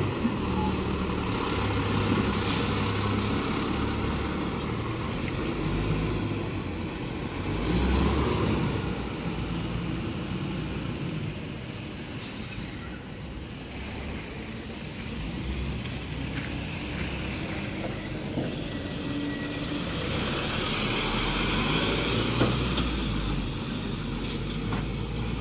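Garbage truck running close by, its engine steady and low, with a few brief sharp sounds along the way.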